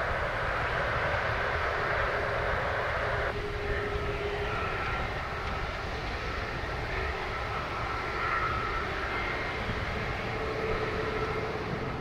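Jet airliner engines running: a steady rumble with a faint whine that wavers slightly in pitch.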